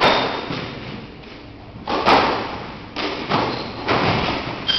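Squash rally: the ball smacking off rackets and the court walls in a run of sharp hits, one with the serve at the start and then several more, closer together later on, each echoing in the enclosed court.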